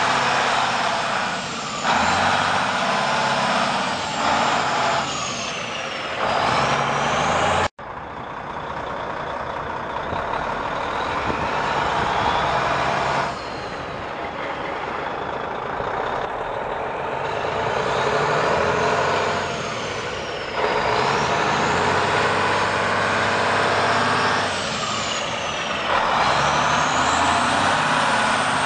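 Cummins N14 six-cylinder diesel engine of a semi truck running, its sound stepping up louder and falling back again several times. The sound drops out for an instant about eight seconds in.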